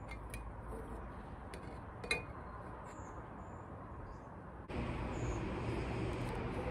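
Quiet outdoor background with a few light clicks and a single clink about two seconds in, and a short high bird chirp or two. About two-thirds of the way through, the background jumps to a louder, steadier hiss with a low hum.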